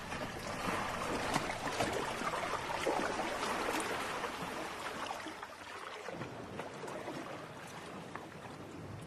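Wooden paddles dipping into water from small canoes, with small irregular splashes and trickling drips, louder in the first half and growing fainter after about five seconds.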